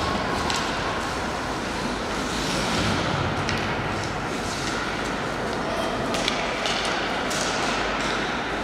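Ice hockey play in an arena: skates scraping the ice and several sharp clicks of sticks and puck over a murmur of voices in the hall.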